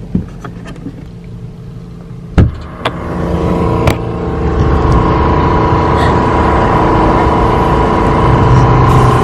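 A few sharp knocks about two and a half to four seconds in. Then an air pump's compressor starts running loudly and steadily while a car tyre is inflated.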